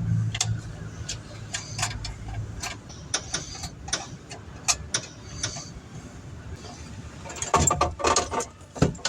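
Irregular sharp clicks and light knocks from hand work on car parts, with a busier clatter of knocks about three-quarters of the way through.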